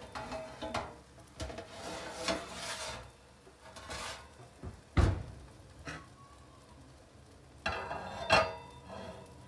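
Kitchenware handled on a metal baking tray: scraping and rubbing, a sharp knock about five seconds in, and a plate set down with a short ringing clatter near the end.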